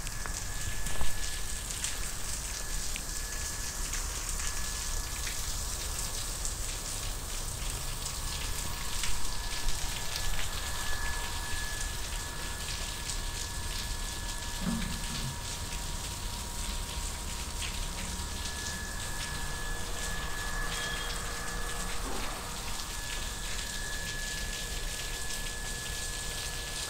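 Water from sprinkler heads spraying across rooftop solar panels, pattering steadily like rain, with many small drops ticking onto the camera.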